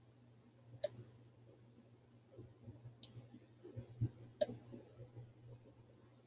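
Faint computer mouse clicks, three sharp ones, with soft scuffing of the mouse being moved between them, over a faint steady low hum.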